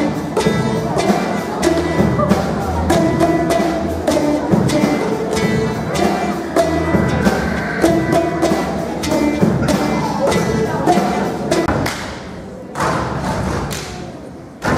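Boomwhackers struck in rhythm by a group, sounding a pattern of hollow, pitched thumping notes. The playing thins out and quietens about twelve seconds in.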